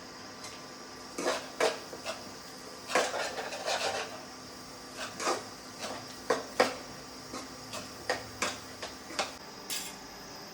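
Kitchen utensils clinking and knocking against dishes in irregular strikes, some in quick clusters.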